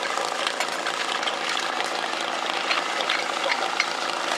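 Portable fire-sport pump's engine running steadily, with the clatter of hose couplings and water splashing in the suction tank.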